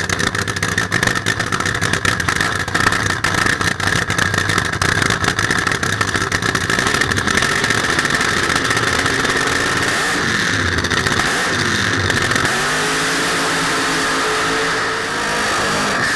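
Nitro funny car's supercharged V8 running on nitromethane with a loud, crackling, rough idle. About ten seconds in it is revved up and down a couple of times, then it settles into a steady, even note.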